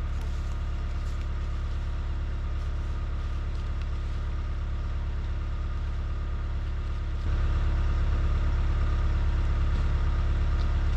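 Trencher's engine running steadily, getting louder about seven seconds in.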